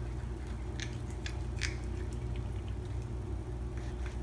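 Kitten biting and chewing blades of cat grass: a few short, crisp crunches about one second in and again near the end, over a steady low hum.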